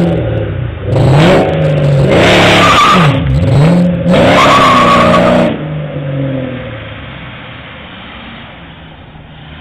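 Hot-rodded muscle car engine being revved in about four throttle blips, each rising and falling in pitch, the last two held longer. It then drops back to a steady idle about halfway through.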